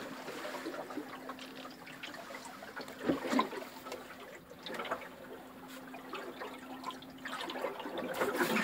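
Water lapping and trickling against a small sailboat's hull, heard faintly from inside the cabin, with a soft knock about three seconds in and the sound of water swelling near the end.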